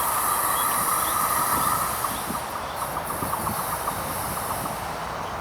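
Union Pacific manifest freight train rolling past, with a steady high squeal and hiss that fade about two seconds in, leaving lighter ticking and rumble from the cars.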